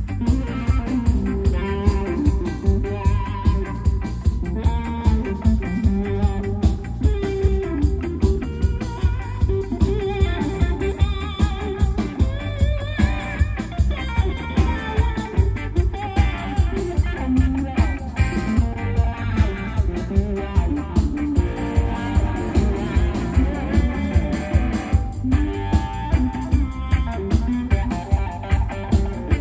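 Live band playing an instrumental passage of a reggae song: guitar over a drum kit with a steady beat.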